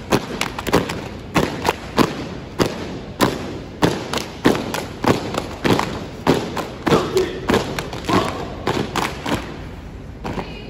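A drill team's shoes stamping in unison on a hard hangar floor while marching, a sharp stomp a little under twice a second. The stomps stop shortly before the end as the team halts.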